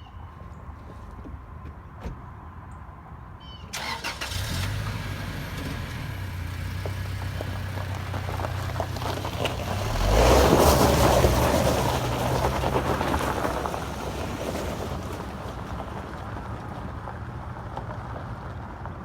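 An engine starts about four seconds in and keeps running with a steady low hum, growing louder for a couple of seconds around ten seconds in.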